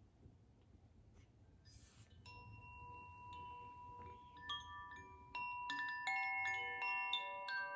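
Koshi chime being set in motion: after a faint rustle, single clear ringing notes start about two seconds in, and more overlapping notes join as it keeps swinging, getting fuller and louder toward the end.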